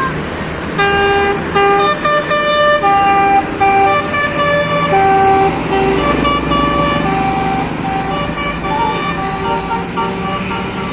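A bus's Basuri 'telolet' musical horn plays a melody of short and held notes, loudest through the first half and then fainter toward the end, with engine noise underneath.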